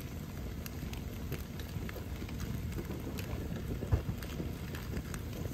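Campfire of dry desert brushwood burning under a grill grate: a steady rush of flames with scattered small crackles and one sharper pop about four seconds in.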